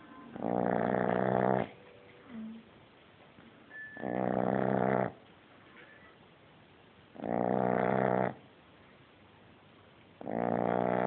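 French bulldog puppy snoring loudly: four snores about three seconds apart, each lasting about a second, with quiet breathing between them.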